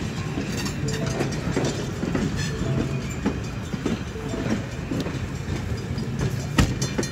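Railroad passenger coaches rolling past at close range, their steel wheels clicking and clacking over rail joints and the grade crossing in a steady run of strikes.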